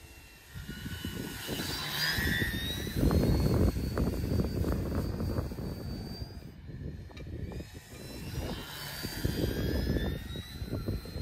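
Brushless electric motor and 12x6 propeller of a Balsa USA Stick 40 Plus RC plane whining as it passes twice, the pitch gliding up and down with each pass. Loud gusts of wind buffet the microphone underneath.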